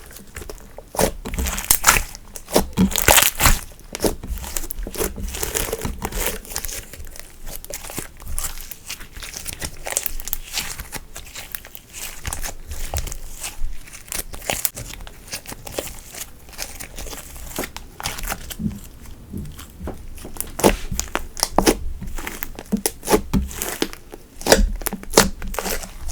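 Hands kneading and stretching slime, giving an irregular run of small crackling pops and clicks as the slime is pressed and pulled.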